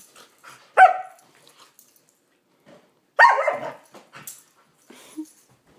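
Dogs barking during rough play: one short sharp bark about a second in, then a longer, louder, rougher burst of barking a little past halfway.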